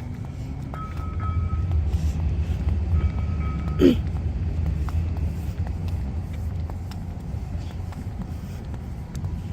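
A road vehicle going by with a low, steady rumble that swells in the first few seconds and eases off after about six seconds. A short rising chirp sounds about four seconds in.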